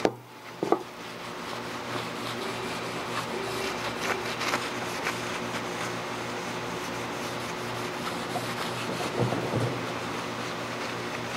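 Shop towel wiping and rubbing across the cast-iron friction surface of a solid flywheel, cleaning it with brake cleaner. There are a few light knocks, about a second in and near the end, over a steady low hum.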